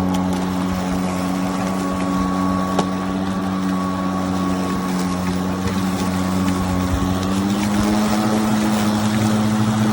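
Lawn mower running steadily with a strong hum, its pitch stepping up slightly about three-quarters of the way through.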